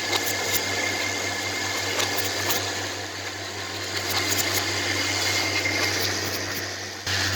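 Automated laser-welding machine for plastic drip-irrigation emitters running: a steady low hum and faint whine, with irregular light clicks and ticks from its moving parts. The sound jumps louder just before the end.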